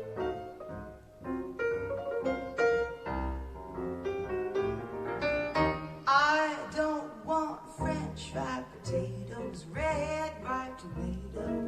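Recorded jazz song played back through Elac Debut Reference DBR62 bookshelf speakers: piano at first, with a singing voice coming in about six seconds in.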